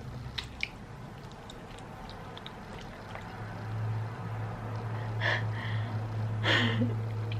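Wet mouth sounds of eating a sauce-covered turkey leg: a few faint clicks, then two louder smacks about five and six and a half seconds in. A steady low hum comes in about halfway through.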